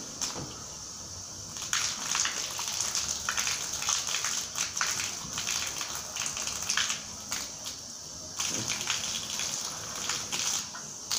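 Water from a garden hose gushing and splashing against a wall, surging unevenly as the hose is moved and set in place at the top of the wall.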